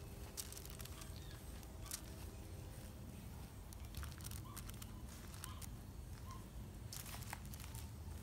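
Faint rustles and small clicks of raw bacon strips and parchment paper being handled by hand on a table, over a steady low background rumble.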